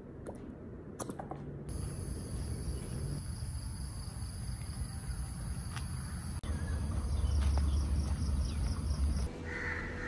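Insects buzzing in a steady, high drone that starts about two seconds in and pulses toward the end, then cuts off. Crows start cawing just before the end.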